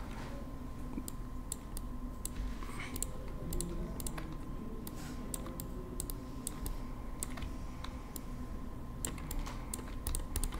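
Clicking of a computer keyboard and mouse: irregular light key and button clicks over a faint steady hum.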